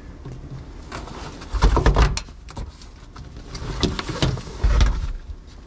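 A seat being lifted and manhandled out of a 1986 Toyota pickup's cab, knocking and scraping against the cab. There are two heavy thumps, about one and a half seconds in and again near the end.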